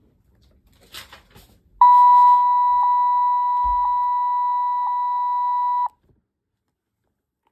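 Baby Alive Sweet Tears doll's speaker sounding one steady test-mode beep about four seconds long, which cuts off suddenly. A few faint clicks come just before it.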